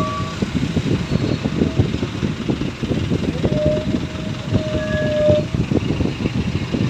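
Motorcycle and car engines running in slow stop-and-go traffic, a steady rumble with short horn beeps twice in the middle.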